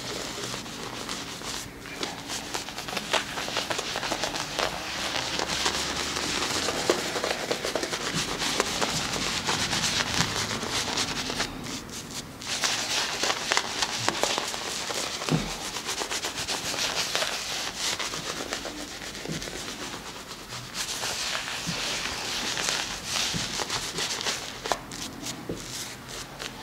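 Shaving brush and then fingers working soap lather over a shaved scalp: wet foam crackling and rubbing close to the microphone, with a brief lull about halfway.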